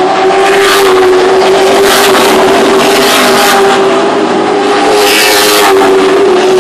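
Late Model stock cars racing on a short oval, their V8 engines at full throttle in a steady pitched drone. Several cars sweep past close by one after another, each one swelling and fading.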